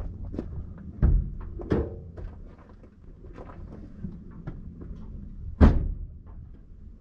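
Vehicle jolting over a rough, rocky track, picked up by a camera on its back bumper: a steady low rumble with sharp clunks about a second in, again just before two seconds, and a louder one past five and a half seconds.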